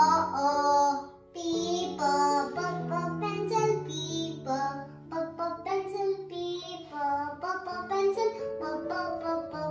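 A children's phonics song: a child's voice singing short phrases over a light instrumental backing, with a brief break about a second in.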